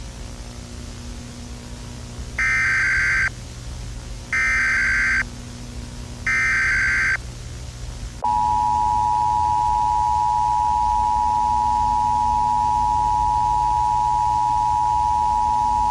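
Emergency Alert System tones: three one-second bursts of the SAME data header warble, then the two-tone EAS attention signal held steady for about eight seconds. A low hum and hiss runs underneath.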